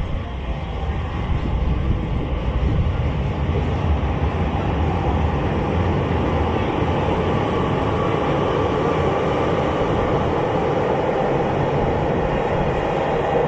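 JR Hokkaido 733 series electric multiple unit running past along the platform, with a steady rumble of wheels on rail. It grows louder over the first couple of seconds and then holds steady.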